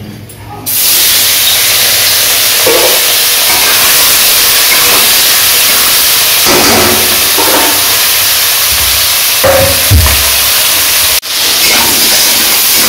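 Small turmeric-coated prawns hitting hot oil in an aluminium kadai and sizzling loudly, the hiss starting suddenly about a second in as they go into the oil and staying steady while they are stirred with a spatula.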